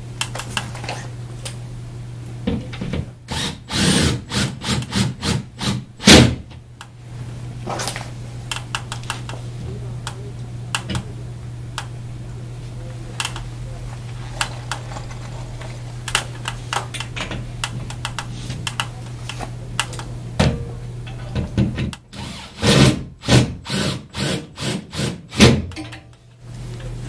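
Cordless drill driving screws through a metal drapery crown bracket into the wall, in two groups of short bursts a few seconds in and again near the end, with knocks of the metal against the wall. A steady low hum lies underneath.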